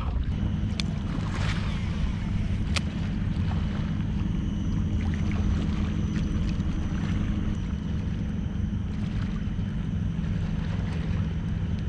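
Steady low rumble of wind buffeting the microphone and water moving against a plastic kayak hull, with a couple of sharp clicks in the first few seconds.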